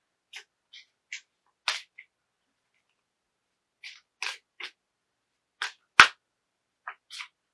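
A deck of reading cards being handled and shuffled: about a dozen short, separate rustles and snaps at an uneven pace, with one sharper tap about six seconds in.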